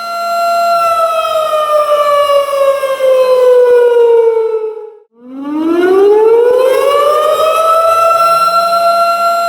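Tornado warning siren wailing on one steady pitch, then winding down over several seconds. Just past the middle it cuts out briefly, then winds back up to its full pitch and holds it again.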